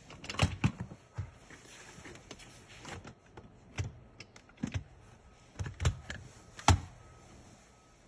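Irregular knocks and clicks of a hard plastic massage-chair skirt panel being handled and seated against the chair's metal frame, the loudest knock near the end.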